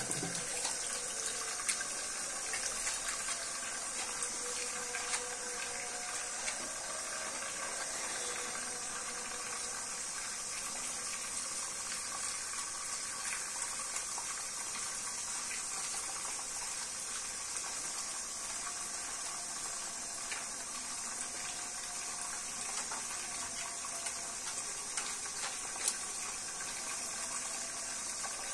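Tap water running steadily from a mixer faucet into a sink while soapy hands are rubbed under the stream, with light splashes.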